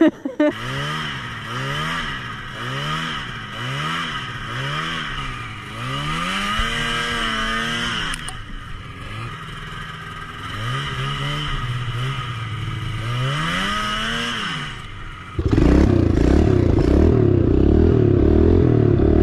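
Small gas engine revved up and down over and over, its pitch rising and falling about once a second. About fifteen seconds in it cuts to a louder dirt bike engine running hard and steady.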